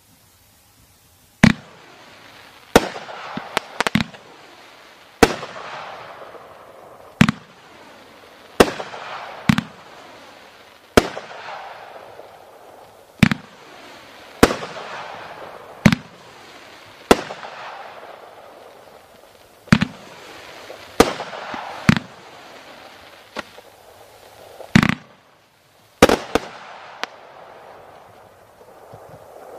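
Secret Agent 500-gram 30-shot firework cake firing its comet shots one after another: about twenty sharp bangs, one every second or so and sometimes two close together, each followed by a fading hiss.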